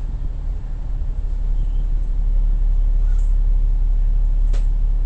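Double-decker bus's diesel engine idling, heard from inside the bus as a steady low rumble. It grows a little louder about two seconds in, and there is a single sharp click near the end.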